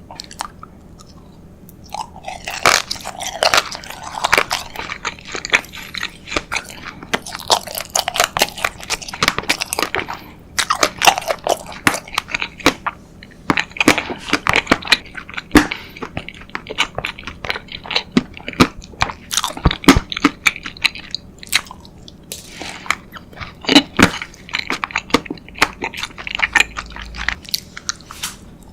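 Close-miked biting and chewing of a homemade earth-shaped jelly sprinkled with candy, with crunchy crackles and wet mouth clicks. It starts about two seconds in and goes on in uneven bursts.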